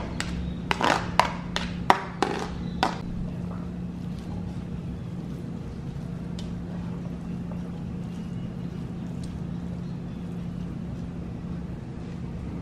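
Kitchen utensils clinking and knocking against a pan, about seven sharp strokes in the first three seconds, then only a steady low hum.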